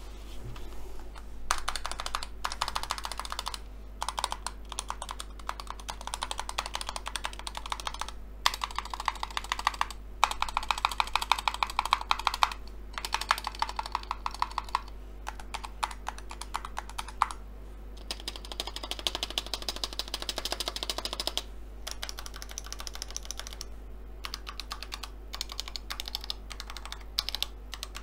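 Fast typing on a Razer Huntsman Tournament Edition TKL keyboard with red linear optical switches and double-shot PBT keycaps: rapid runs of key clacks broken by short pauses every few seconds.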